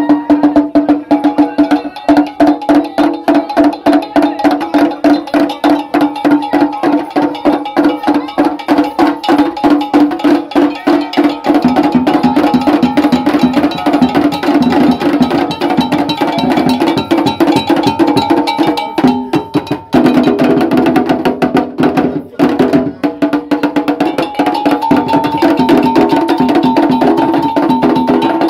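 Traditional Ga Kpele percussion music: a fast, steady stream of strokes on ringing struck instruments with drums. It breaks off briefly twice in the second half.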